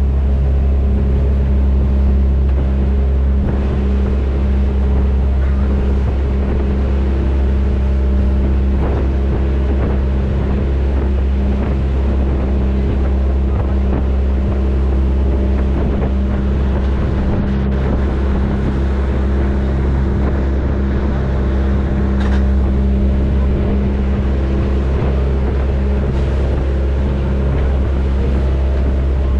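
Boat engine running steadily as a deep, even drone, with wind noise on the microphone and the rush of water.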